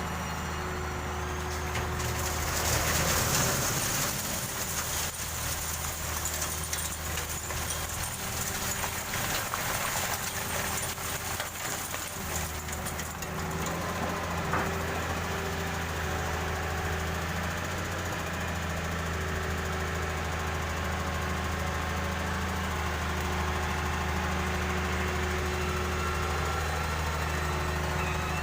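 Excavator's diesel engine running steadily, with a rougher, noisier stretch about two seconds in that fades out around thirteen seconds.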